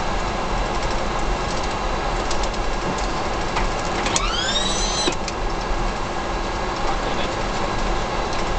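Steady, even rushing noise on the flight deck of a Boeing 747-400 taxiing just after landing. About four seconds in there is a brief rising whine that levels off and stops after about a second, over a few faint ticks.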